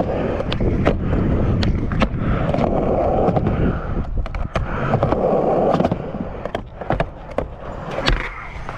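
Skateboard wheels rolling over rough concrete and skatepark ramps, a steady rumble broken by many sharp clacks. The rolling gets quieter about six seconds in.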